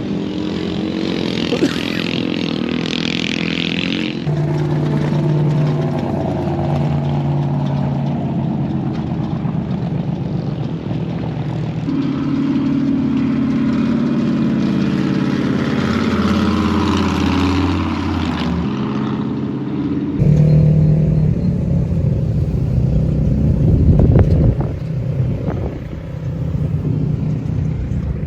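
Engines of off-road vehicles driving past, rising and falling in pitch as they pass. The sound changes abruptly twice, about two-thirds of the way through.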